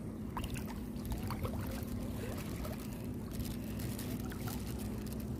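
Shallow seawater sloshing and splashing lightly around a hand groping in the sandy bottom for clams, with small scattered drips and splashes. A steady low hum runs underneath.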